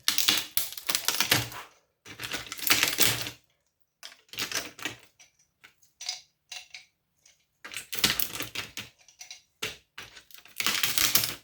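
Rapid metallic clicking and rattling in bursts of a second or two, with scattered single clicks between: a transformer being worked loose from a power-supply circuit board with hand tools.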